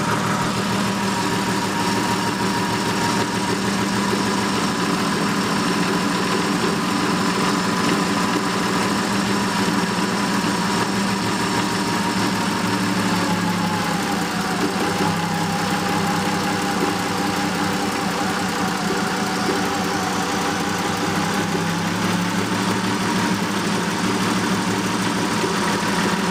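Subaru Justy's freshly rebuilt 1.2-litre three-cylinder engine idling steadily, with a thin whine over the engine note that sags slightly in pitch about halfway through.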